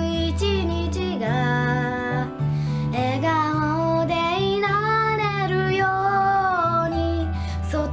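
Girls singing a Japanese pop song in held, smoothly gliding phrases over an instrumental backing with a steady bass line.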